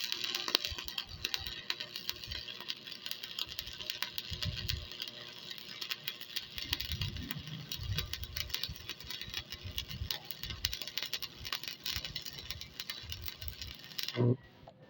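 Electric arc welding: a steady crackling sizzle from the arc as a weld bead is laid, cutting off suddenly near the end when the arc is broken.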